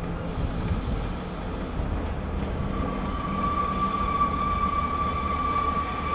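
Diesel passenger train running across a curved viaduct with a steady rumble. From about three seconds in, a steady high-pitched squeal of the wheels rides over it.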